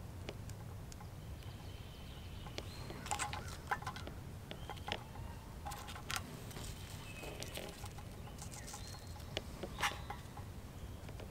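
Quiet handling sounds, a few light clicks and taps, as cheese slices and bacon strips are laid onto a sandwich on a wire grill rack. A bird calls faintly a few times over a low steady background noise.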